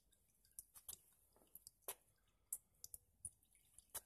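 Faint, irregular drips of hot engine oil falling from the mower engine's drain into a half-full coffee can, a dozen or so separate little clicks.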